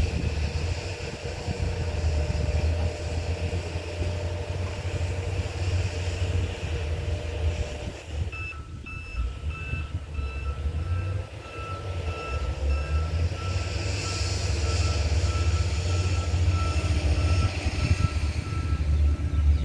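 Electronic railway crossing warning beeper starts about eight seconds in and sounds a rapid, evenly repeated beep as the train approaches, over a low steady rumble.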